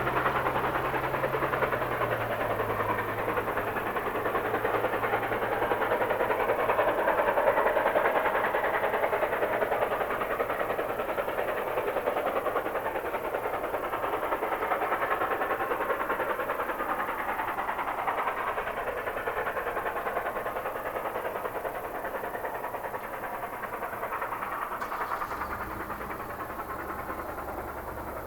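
A train rolling past: a steady rumble and wheel noise on the rails, slowly growing fainter.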